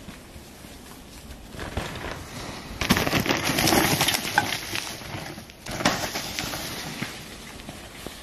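Mountain bike tyres crunching and crackling over dry leaves and dirt as the bike passes close, beginning with a knock about three seconds in and loudest for the next second and a half, with a second swell of crunching near six seconds.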